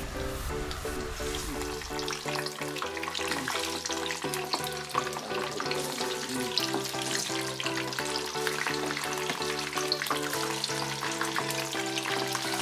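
Risoles and sesame balls deep-frying in hot oil in a wok, a steady crackling sizzle, under background music.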